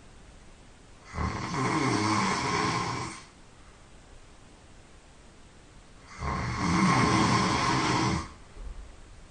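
A sleeping person snoring loudly: two long snores of about two seconds each, roughly five seconds apart.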